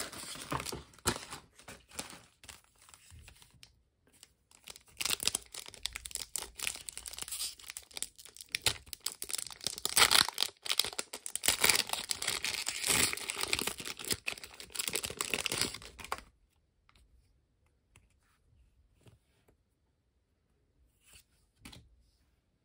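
Plastic flow-wrapped trading-card booster pack being torn open and its wrapper crinkled, a dense crackling for about sixteen seconds, then only a few faint clicks.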